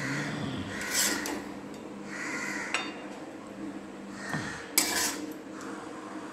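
Metal spoon scraping and clinking against a metal kadhai as cooked radish sabzi is scooped out onto a plate: several short scrapes, with a sharp knock about three-quarters through.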